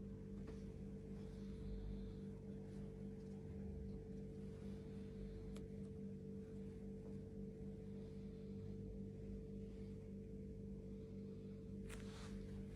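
Steady low hum made of several held tones, like a mains or appliance hum, with a few faint clicks and a brief rustle near the end.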